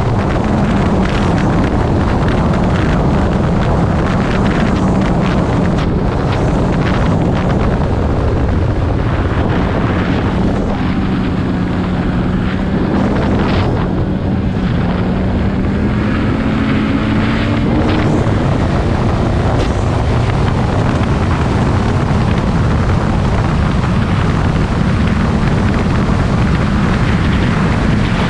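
Snowmobile engine running at cruising speed, with heavy wind noise on the microphone. The engine pitch dips and climbs again partway through, and there are a few short knocks.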